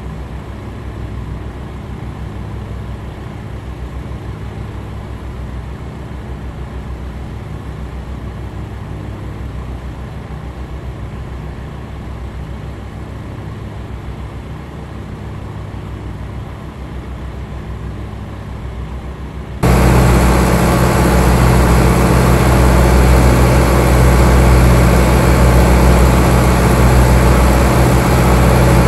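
A steady, low engine drone. About two-thirds of the way in it gives way suddenly to a much louder, closer engine running steadily.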